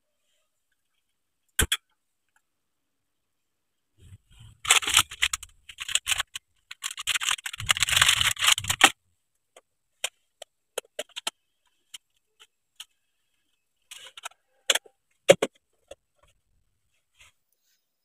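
Plastic packaging crinkling and rustling for about four seconds in the first half, amid scattered light clicks and knocks of cooking things being handled, one sharper knock near the end.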